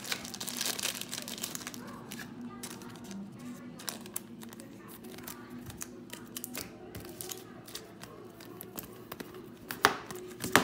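Trading cards and their plastic and foil pack wrappers being handled, crinkling and rustling with scattered small clicks, and a sharper click near the end, over a faint low hum.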